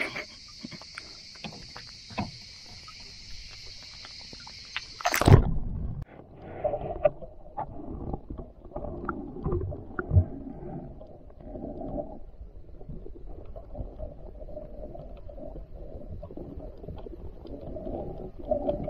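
A steady high insect chorus with scattered clicks, cut off about five seconds in by a loud thump. After it a boat is under way: a low, uneven rumble of its motor and water.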